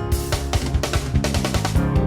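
Background music with a steady drum beat: bass and snare drums under sustained pitched notes.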